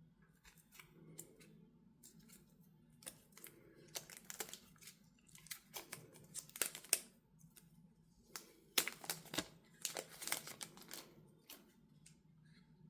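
Packaging being handled during unboxing: irregular clusters of rustling, crinkling and sharp clicks with quiet gaps between them, loudest around the middle and again about two-thirds of the way through.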